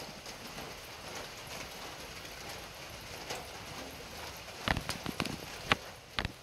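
Light rain falling, a steady hiss, with a quick run of sharp taps from a little before five seconds in.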